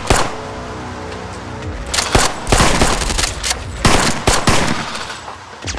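Rapid gunfire in bursts of quick shots, over a music score. A shot comes right at the start, then held music tones, then clustered shots from about two seconds in until past four seconds.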